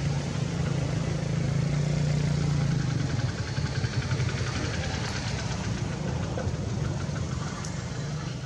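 An engine running steadily with a low hum; a faint, fast, even pulsing buzz joins it from about three and a half to six seconds in.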